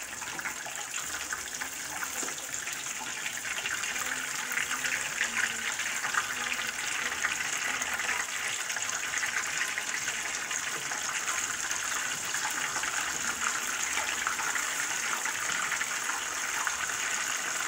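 Hot oil sizzling and crackling steadily around cheese-filled blue-corn masa turnovers deep-frying in a small saucepan.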